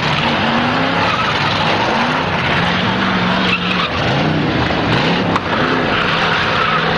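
Several demolition derby cars' engines revving hard at once, their pitches rising and falling over each other, with tyre noise. There is a single sharp knock a little past five seconds in.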